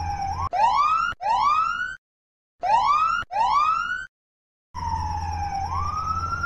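Police car siren whooping. A falling tone turns into two quick rising whoops, then it cuts to dead silence, then two more whoops, another sudden silence, and finally a dip followed by one long, slow rising wail.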